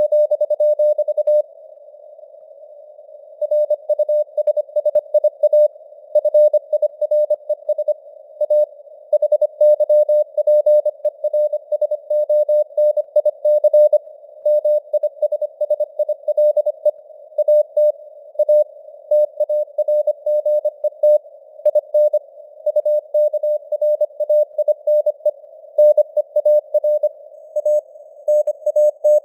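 Morse code (CW) sent at 25 words per minute: a single steady mid-pitched tone keyed on and off in dots and dashes over a narrow band of simulated radio hiss. There is a pause of about two seconds near the start.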